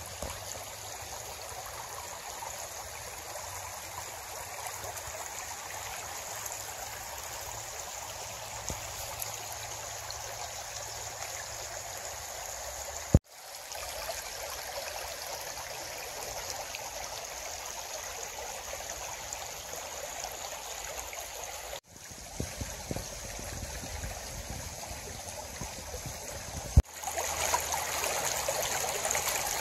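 Shallow creek babbling steadily over a bed of stones and cobbles. It breaks off abruptly a few times and is louder near the end.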